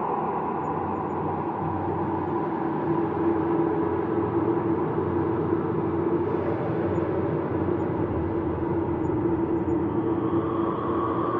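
Ambient space drone: a steady rumbling bed with sustained tones that shift slightly in pitch near the end.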